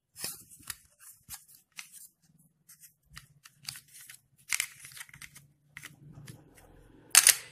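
Small plastic clicks and scrapes from fingers handling and pressing on the opened plastic shell of a Microsoft optical mouse, irregular throughout, with one louder click about seven seconds in.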